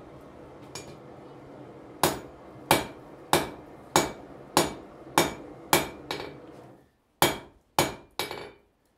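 Blacksmith's hand hammer striking red-hot iron on an anvil: a regular series of about eleven blows, a little under two a second, each with a short metallic ring. The blows begin about two seconds in and pause briefly just before the last three.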